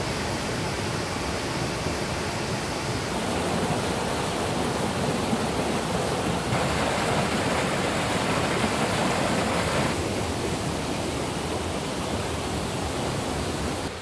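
Mountain stream and small waterfall rushing over boulders into a pool: a steady rush of water, brighter for a few seconds in the middle.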